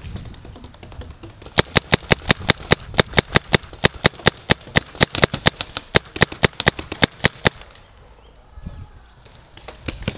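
Paintball marker firing a rapid string of shots, about seven a second, for around six seconds, then stopping. A few more shots start again at the very end.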